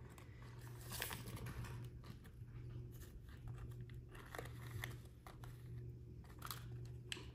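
Faint, scattered crinkles and light clicks of a small paper sandwich wrapper being handled and a miniature plastic toy burger being set down.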